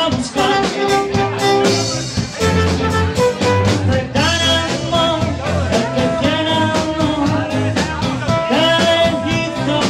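Live band playing amplified 1960s-style music: a trumpet carries the melody in held and moving notes over electric guitars, bass and a steady beat.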